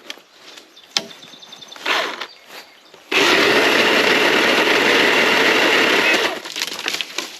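Small electric pole saw cutting a tree branch: a short burst of the motor about two seconds in, then the chain runs steadily through the wood for about three seconds and stops. A few sharp snaps of branches come before it.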